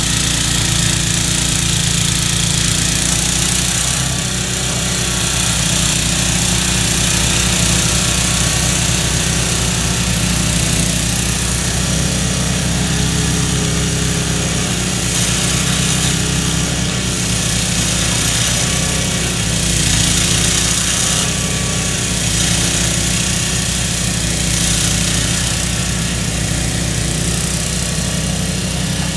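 MTD snowblower's small Tecumseh engine running steadily under load, its auger and chute throwing heavy wet snow.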